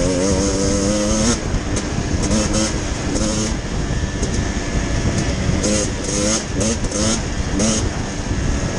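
Enduro dirt bike engine running under throttle as the bike rides along a muddy forest track. The revs waver, then ease off about a second and a half in, leaving mostly a noisy rush broken by short blips of throttle.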